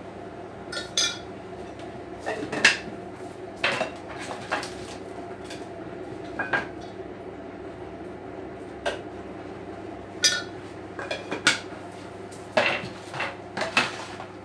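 Mugs, spoons and dishes clinking and knocking on a kitchen counter while coffee is being made: a dozen or so separate clinks, some ringing briefly, over a steady low hum.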